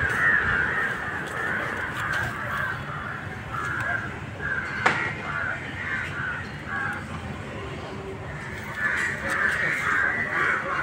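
Crows cawing in repeated short harsh calls, in a run at the start and again near the end. One sharp click about five seconds in.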